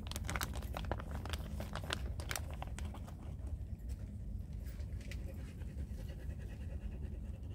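Thin plastic bag crinkling and crackling as it is handled, a dense run of crackles over the first three seconds that thins out afterwards, over a steady low rumble.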